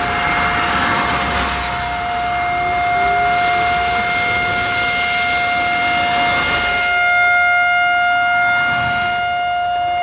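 Whelen WPS-3016 electronic outdoor warning siren sounding a steady, single-pitch alert tone with strong overtones as its horn array rotates. Passing traffic hisses on a wet road behind it, swelling up several times.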